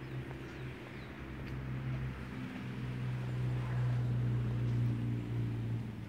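A motor vehicle engine running with a steady low hum, growing louder to about five seconds in and then dropping away near the end.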